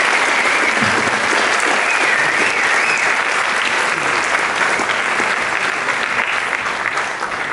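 Audience applauding, loud and steady, dying away near the end.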